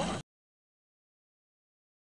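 The end of a rising synthesized sweep sound effect, which cuts off abruptly a fraction of a second in, followed by dead digital silence.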